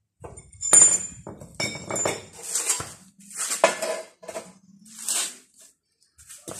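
Metal clanking and scraping as a long metal bar is handled and slid along a steel grinder stand: a run of sharp clinks, the loudest about a second in, then several scraping rasps.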